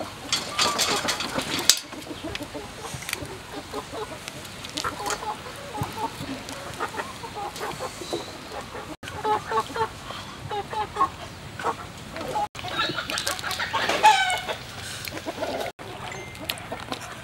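Chickens clucking, with many short calls and one louder, longer call about 13 seconds in. A few sharp clicks near the start.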